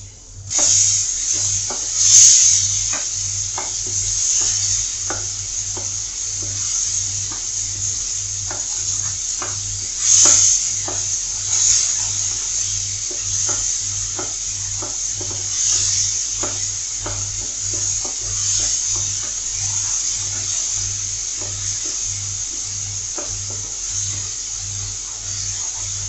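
Mango pulp sizzling in hot oil with ginger, green chilli and curry leaves in a non-stick pan, while a spatula stirs and scrapes, giving irregular clicks against the pan. The sizzle starts suddenly about half a second in, as the pulp goes into the hot oil.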